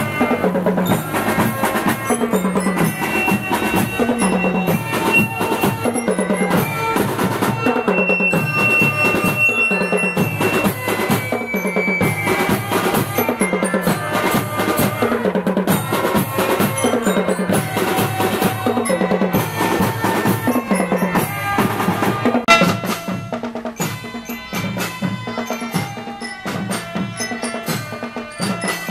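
Children's drum band playing: bass and snare drums beating a steady marching rhythm under a bell-lyra melody. About three-quarters of the way through, the sound cuts to a quieter, thinner recording of the drumming.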